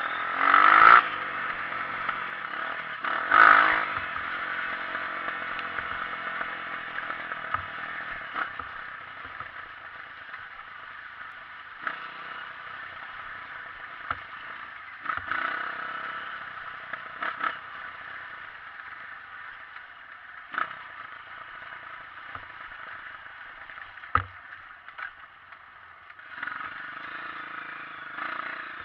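Honda CRF 230 single-cylinder four-stroke trail bike engine running, swelling louder twice in the first four seconds, with short knocks and clatter scattered through.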